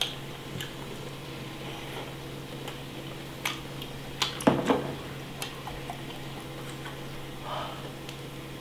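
Scattered light clicks and knocks of a small bowl and wooden skewers against a metal pot and tabletop while eating fish-cake skewers (oden), the loudest cluster about four and a half seconds in, over a steady low hum.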